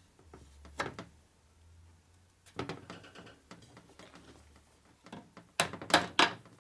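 A few sharp knocks of a hammer tapping a part onto an aluminium knucklehead engine case: one, then a short cluster, then three quick taps near the end.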